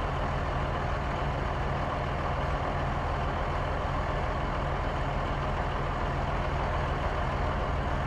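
Bus engine running steadily, low and even, with no change in pace.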